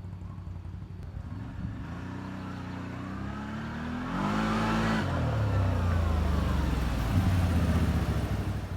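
CFMOTO CForce 1000 ATV's V-twin engine revving: its pitch climbs for a few seconds, drops suddenly about five seconds in, then it runs deeper and louder until near the end.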